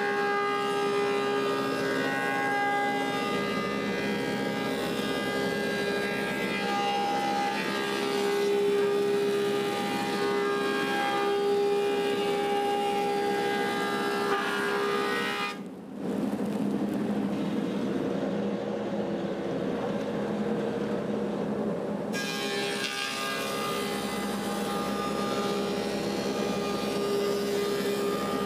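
Woodmaster 725 planer running with a steady whine while its cutterhead planes a spalted apple slab. Partway through, the high cutting noise falls away for several seconds while the machine keeps running, then the cut resumes as the slab is fed through again.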